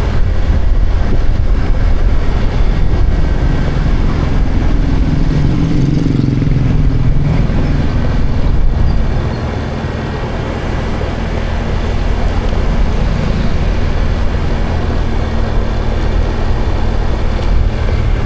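Motor vehicle engine and road noise with a steady low rumble. The engine note grows louder from about four seconds in and falls away around nine seconds, then the rumble continues.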